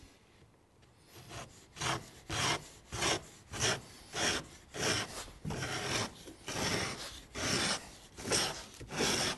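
Homemade slot-cutting gauge, a marking gauge with a filed cutting foot, scraping a narrow slot into a wooden workpiece in short back-and-forth strokes, a little under two a second, starting about a second in.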